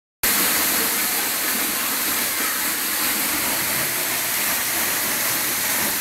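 Rushing water of a fast mountain stream over rocks, a steady even hiss.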